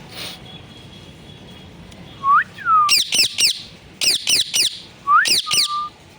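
Pet parrot calling: short whistles that rise and then fall, followed by quick runs of three sharp, steeply falling shrieks, heard three times over the last four seconds.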